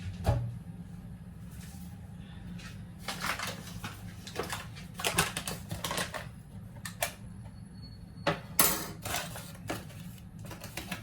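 Kitchen utensils and containers clattering and scraping: a sharp click near the start, then two spells of short knocks and scrapes, like a spoon working in bowls, over a low steady hum.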